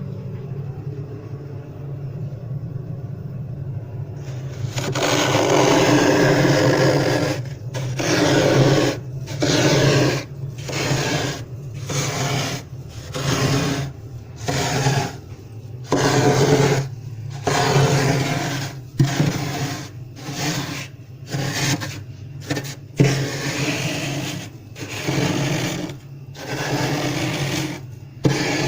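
Flaky freezer frost being scraped off the freezer wall in repeated strokes, about one a second, starting about four seconds in. A steady low hum runs underneath throughout.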